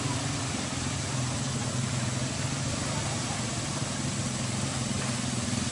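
A four-wheeler ATV engine running at a low, steady speed as the quad wades through a creek, with water churning around its wheels.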